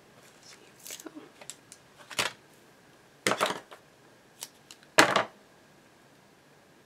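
A few short clacks and rustles of baker's twine and scissors being handled on a craft table, the loudest about five seconds in.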